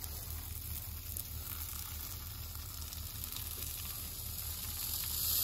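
Spectracide wasp-spray aerosol can releasing a continuous jet of insecticide with a steady hiss, growing a little louder near the end.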